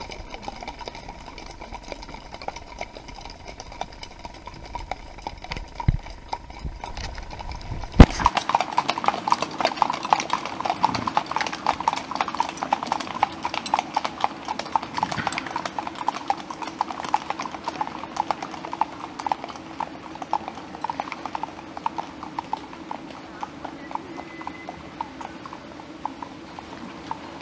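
Hooves of several Icelandic horses clip-clopping on a paved road, a dense, uneven patter of hoofbeats that gets louder after a sharp click about eight seconds in. Before that, the hoofbeats are fainter under a steady hum.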